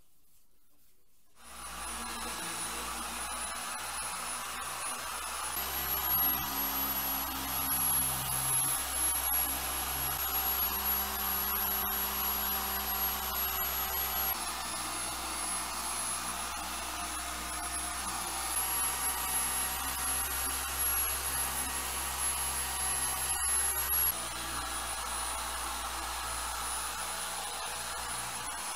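Electric buffing polisher starting about a second and a half in and running steadily, its high whine stepping up and down in pitch a few times as the load on the pad changes.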